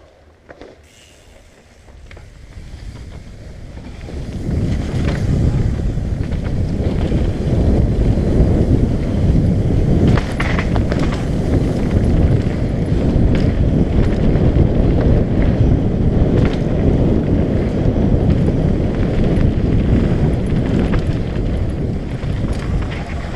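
Wind buffeting the microphone and knobby tyres rumbling on a dirt trail as a Trek Session downhill mountain bike rolls off and picks up speed. The rumble builds over the first few seconds, then stays loud and steady, with occasional clacks and rattles from the bike over bumps.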